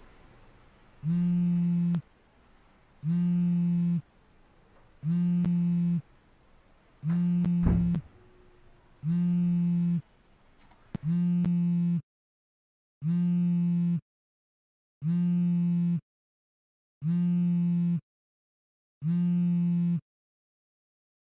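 An electronic alarm buzzing in one-second beeps, one every two seconds, ten in all. A dull thump sounds during the fourth beep.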